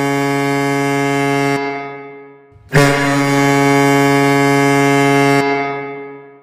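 Hockey goal horn sounding in long, steady blasts: the first fades out about two seconds in, and the next starts just under three seconds in, holds for nearly three seconds, then fades.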